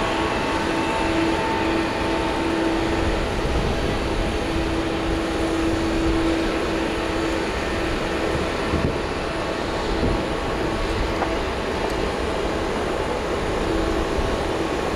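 Boeing 787-8 airliner's jet engines running at low power as it taxis: a steady rush with a low hum that comes and goes.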